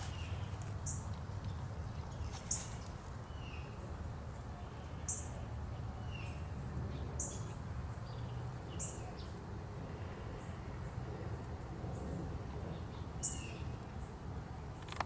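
Small birds chirping outdoors: short, high-pitched chirps every second or two, some with a lower falling note, over a steady low background rumble.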